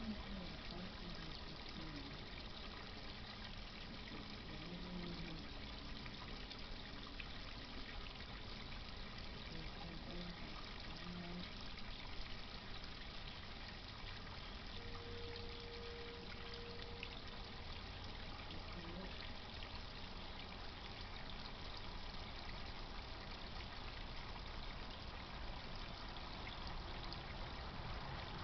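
Garden pond pump's water trickling and splashing steadily. A few faint, short low tones sound under it in the first half, with one held a little longer around the middle.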